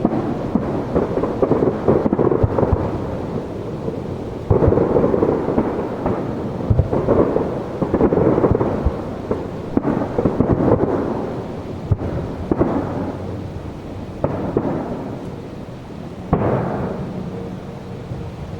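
Aerial firework shells bursting one after another: a rolling series of booms, each fresh burst followed by a long echoing rumble. Strong new bursts come about four and a half seconds in, several more through the middle, and another near the end.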